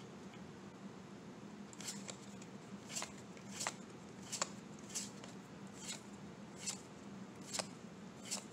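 Magic: The Gathering cards being flipped through by hand, each card slid off the front of the stack and tucked behind with a short, soft flick, about one a second from about two seconds in.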